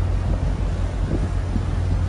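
Wind buffeting the microphone on a moving ship at sea, a steady low rumble under gusting rushing noise.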